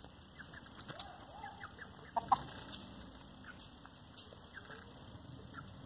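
Bantam chickens giving a few faint clucks: one drawn-out call about a second in, then a couple of short, sharp clucks just after two seconds.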